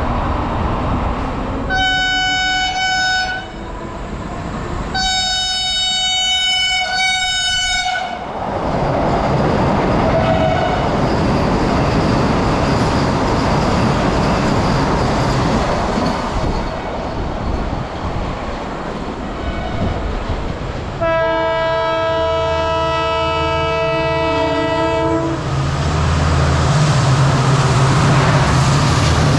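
An Indian Railways train running through at speed, with a steady rumble of wheels on rail throughout. Its horn sounds three times: a short blast, a longer one soon after, and a longer, lower-pitched blast about twenty seconds in.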